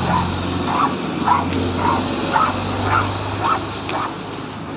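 A dog barking repeatedly, about twice a second, over a steady low hum.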